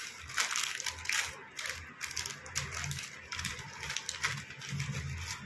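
Clear plastic jewellery packets crinkling and rustling as they are handled, with irregular crackles.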